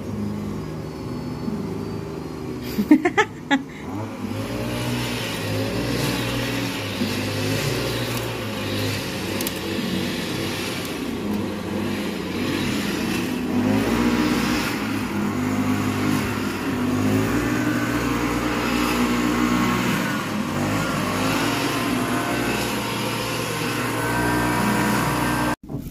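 Petrol backpack brush cutter with a nylon-line head running and revving up and down as it cuts grass. A few sharp clatters come about three seconds in.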